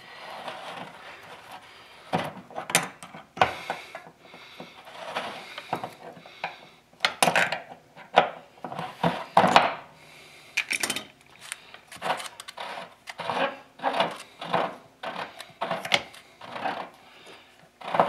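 Corroded lower heating element of an electric water heater being unscrewed from the tank: irregular scraping and grating of metal threads, with clicks of hand tools.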